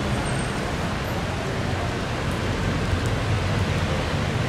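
Steady rain falling on a city street, an even hiss with a low rumble of road traffic beneath it.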